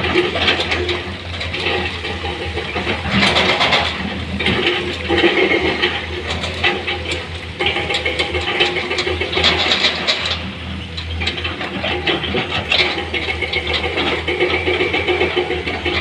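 Heavy diesel machinery running with a steady low hum, with stones clattering and rattling irregularly over it.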